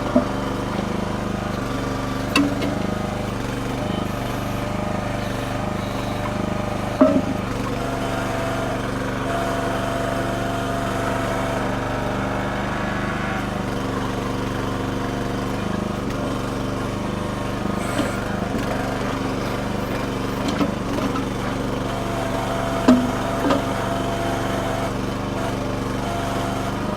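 Red Rock mini backhoe's small engine running steadily under hydraulic load while the bucket digs and drags through rocky ground, with a few sharp knocks of the bucket on rock.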